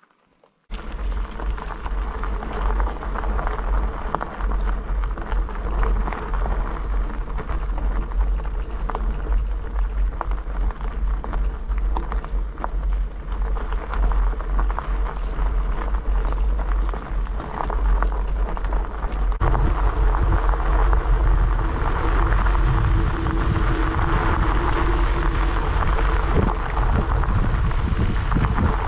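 Wind rumbling on the microphone while bicycle tyres roll along a gravel road. The noise starts abruptly under a second in and grows heavier about two-thirds of the way through.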